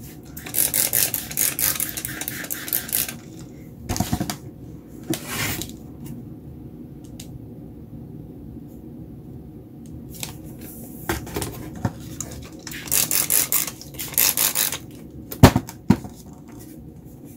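Trigger spray bottle spritzing water onto wet acrylic paint in several runs of quick squirts, with pauses between. A sharp knock comes near the end.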